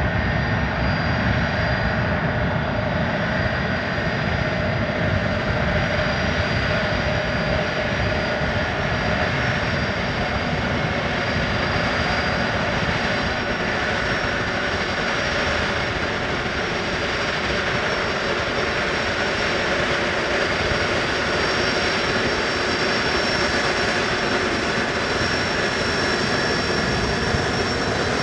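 A Boeing 747-200's four jet engines running steadily as it taxis. The sound is a continuous whine made of several high, steady tones over a low rumble.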